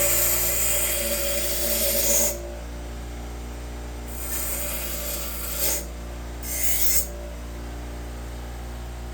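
A grinder wheel grinding down the side of a piece of steel hacksaw blade: steady grinding that stops abruptly about two seconds in, then two shorter touches against the wheel, with the motor humming throughout.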